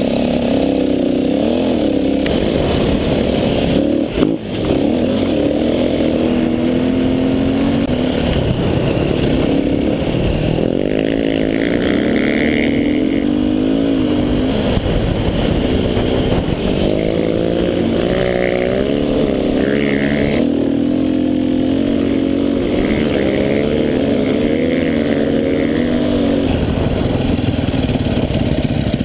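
Dirt bike engine, recorded close up from the rider's position, revving up and down continuously as the bike rides over sand, with a brief dip in the engine about four seconds in.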